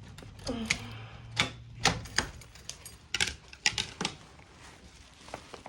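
A series of irregular sharp clicks and clacks, about a dozen, coming in two clusters.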